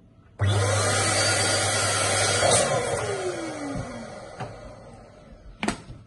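Electric balloon pump switched on about half a second in, its motor whining up to speed and blowing air into a latex balloon. It is switched off about two seconds later, its pitch falling as the motor winds down. A single sharp click near the end.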